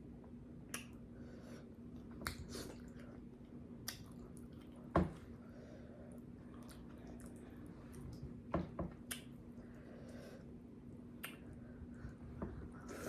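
Close-miked mouth sounds of eating: scattered wet smacks and chewing clicks, with one sharper knock about five seconds in, over a faint steady hum.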